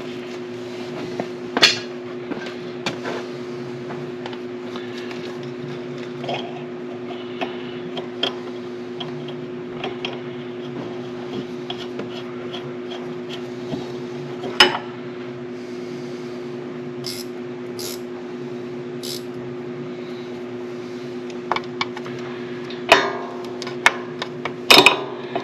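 Occasional metal clinks and knocks of hand tools on a mower deck as a pulley's retaining nut is started, over a steady low hum. The sharpest knocks come about two seconds in, near the middle, and twice near the end.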